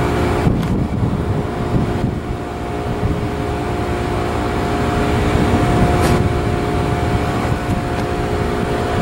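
Jet engines of a twin-engine airliner running with a steady whine of several tones over a low rumble as the plane lines up on the runway for takeoff, growing slightly louder past the middle.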